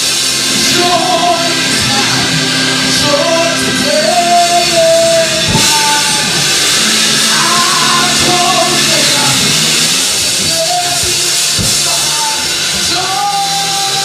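Gospel worship singer singing through a microphone in long, gliding held notes over a steady instrumental backing of sustained chords.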